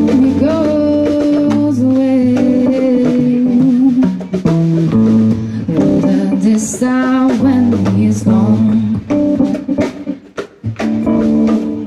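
Live jazz band: a female vocalist singing held notes with vibrato over electric bass, electric guitar and drum kit. The band drops down briefly about ten seconds in.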